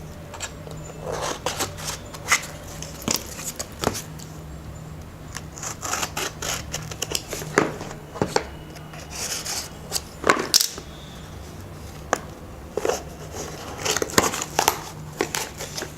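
A delivery package being opened by hand: irregular snips, rips and crinkles of the packaging, with sharp clicks throughout.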